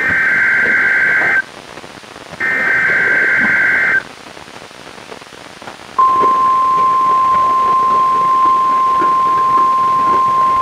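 Emergency Alert System SAME header data bursts from a NOAA Weather Radio test: two screechy data bursts of about a second and a half each, heard through a weather radio's speaker with static hiss from poor reception. About six seconds in, a steady single-pitched alert tone starts and holds.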